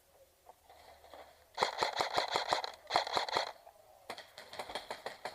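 Airsoft guns firing: two rapid strings of sharp snapping shots about 1.5 seconds in, one right after the other, then fainter scattered shots.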